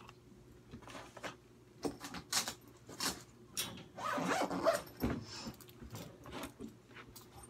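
Rustling and scuffling from a small, over-excited dog jumping up at a person's legs: a series of short scrapes, with a louder stretch of rustling about four seconds in.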